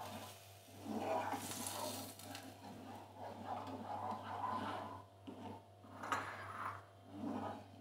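Spatula stirring and scraping a semolina-and-ground-almond mixture in a non-stick pan as the just-added water cooks into it, with a soft sizzle and a brief brighter hiss about a second and a half in.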